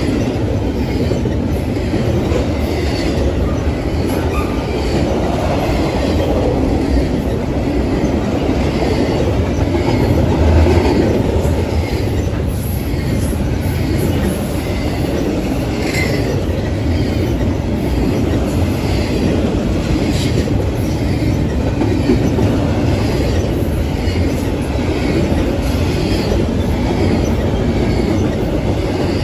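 Double-stack intermodal freight train rolling past: a loud, steady rumble of steel wheels on rail, with faint high ticks recurring about once a second.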